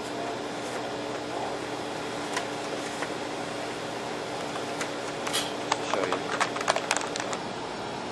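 OKI B4350 laser printers running steadily during a print run, with scattered clicks and a quick run of clicking and clatter about six to seven seconds in.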